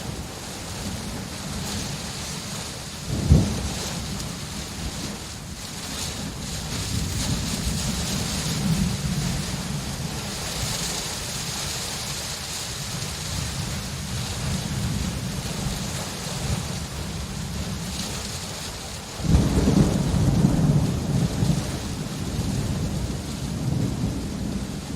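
Steady rain with rolling thunder: a sharp thunderclap about three seconds in, and a longer, loud rumble of thunder starting near the end.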